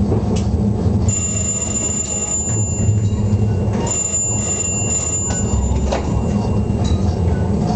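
Train running over the track, heard from inside the driver's cab: a steady low rumble with a few sharp knocks as it rolls through the points. A thin high whine sounds for a few seconds in the middle.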